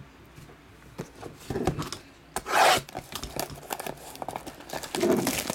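Hands rubbing and scraping a shrink-wrapped cardboard hobby box of trading cards, starting to get at the plastic wrap; scattered small clicks with one louder scrape about two and a half seconds in.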